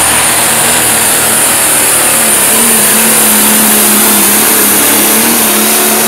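Pro stock pulling tractor's turbocharged diesel engine running flat out under load while dragging a weight-transfer sled. It is a loud, steady drone with a thin high whistle above it.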